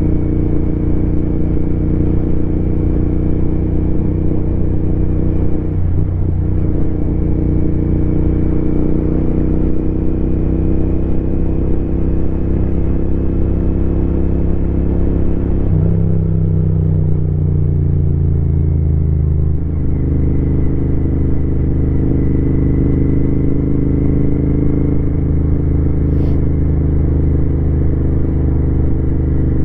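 Royal Enfield Continental GT 650's parallel-twin engine and exhaust under way at a steady pace. About halfway through the engine note jumps up and sinks over a few seconds, then settles lower again, as with a gear change and slowing.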